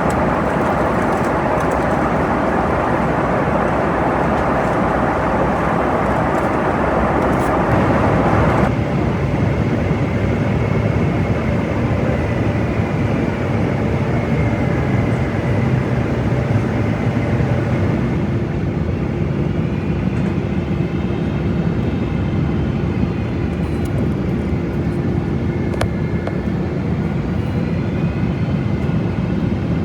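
Boeing 777-200 cabin noise in flight: the steady roar of the jet engines and rushing air. About a third of the way in the higher part of the roar drops abruptly. In the second half a steady hum and a faint wavering whine sit over it.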